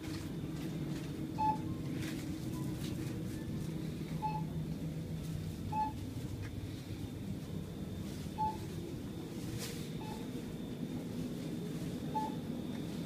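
Short electronic beeps from a shop checkout, about six of them at irregular gaps of one to three seconds, each a single brief tone, typical of items being scanned at the register. Under them is a steady low hum of the shop.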